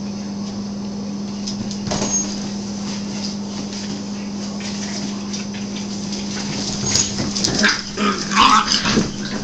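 Miniature pinscher puppies giving short, high yips and whimpers, clustered in the last two seconds or so, over a steady low hum.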